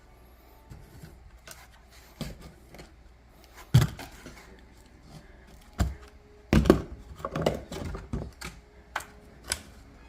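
Irregular clicks and knocks of hard objects being handled, with a few louder thumps about four, six and seven seconds in.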